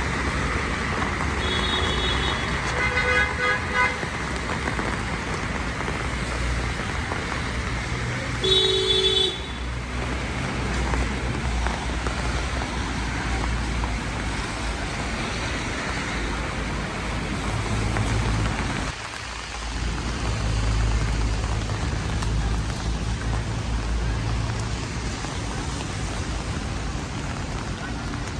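City traffic on a rainy street: a steady hiss of rain and tyres on wet pavement over a low rumble of engines. Car horns sound: a few short toots about two to four seconds in, and a louder honk of about a second near the nine-second mark.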